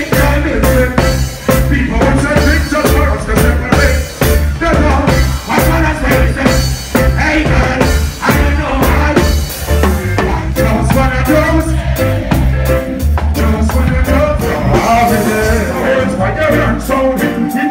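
Live reggae band playing: a heavy, steady bass line and drum kit under a man singing.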